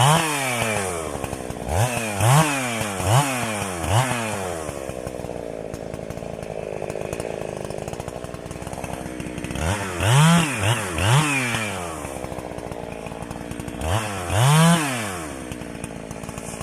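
Two-stroke chainsaw idling, with short throttle blips that rev it up and let it drop straight back to idle: a quick run of about five in the first four seconds, three more about ten seconds in, and two near the end.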